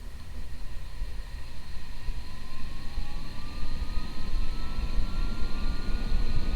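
Casablanca Delta II ceiling fan starting up to high speed, its motor giving a whine that glides upward in pitch from about two seconds in, over a low rumble that grows slightly louder.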